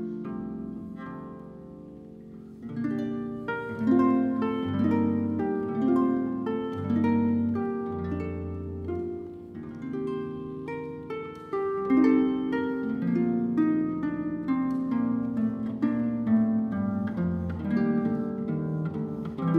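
Solo concert pedal harp playing plucked notes and chords. It dips quieter about two seconds in, then comes back fuller and louder from about three seconds in.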